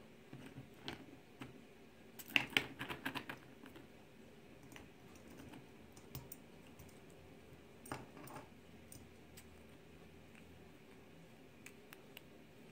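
Grey squirrel rummaging in a glass jar of nuts in their shells: the nuts click and clatter against each other and the glass. A quick run of clicks comes about two and a half seconds in, a shorter rattle about eight seconds in, and single ticks fall between them.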